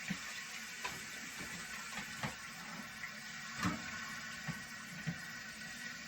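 Newly installed toilet fill valve hissing steadily as water refills the tank, with a few short light knocks.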